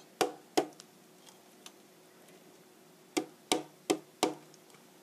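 Stainless steel box grater rapped sharply to knock loose the grated apple stuck inside it: two knocks near the start, then after a pause four more, about three a second, each with a short metallic ring.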